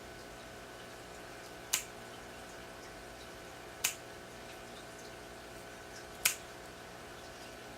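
Three sharp snips of a nail clipper cutting through a cat's claws, about two seconds apart, over a faint steady hum.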